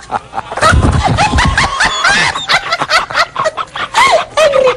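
A man and a woman laughing hard together, in rapid repeated bursts.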